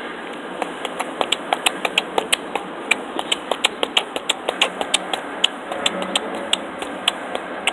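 Rapid, irregular clicking of laptop keys on a Samsung Chromebook, several taps a second, thinning out after about five seconds, over a steady background hiss.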